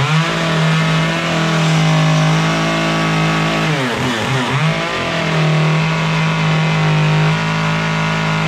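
Chainsaw running at high revs as its bar tip cuts along the outline of a heart in a block of wood. The engine eases off briefly a little under halfway through, then revs back up and holds steady.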